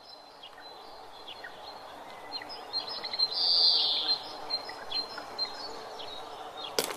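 Birds chirping and calling repeatedly over steady background noise, with a louder burst of calling about three and a half seconds in. A single sharp hit sounds near the end.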